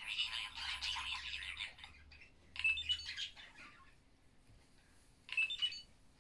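Electronic sound effects from a toy robot's small speaker: a dense, warbling chirp for about the first two seconds, then two short bursts of high beeps and chirps, a few seconds apart.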